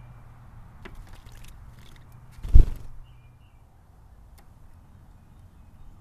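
Tufted titmouse splashing in a birdbath, then one short, loud whoosh of wings close to the microphone about two and a half seconds in as it flies off. A couple of faint, high bird chirps follow.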